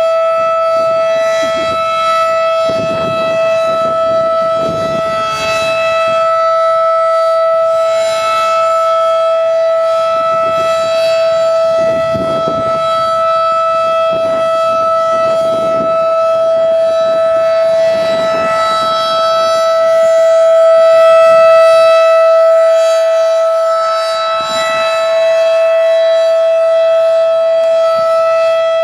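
Federal Signal 2001 outdoor warning siren (second generation) sounding a steady alert tone at full speed, one unchanging pitch with strong overtones. The level swells and fades as the slowly rotating horn sweeps around, loudest about 21 seconds in.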